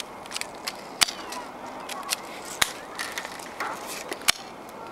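Airsoft guns firing in a snowy outdoor game: a few sharp single cracks about a second and a half apart, the loudest about a second in, over a light rustling crunch.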